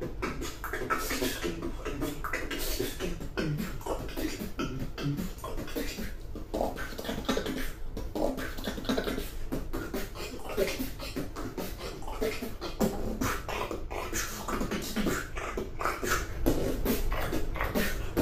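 Human beatboxing: fast, rhythmic vocal percussion made with the mouth, with kick-, snare- and hi-hat-like hits mixed with short pitched vocal sounds.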